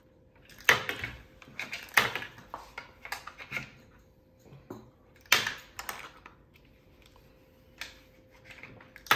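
Discs dropped into a giant wooden Connect Four board, clattering down the slots: several sharp clacks, the loudest about a second in, at two seconds and just past five seconds, with lighter knocks between.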